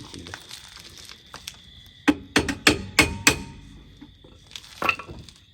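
Sharp knocks of metal on metal: a quick run of about five a couple of seconds in, then one more near the end.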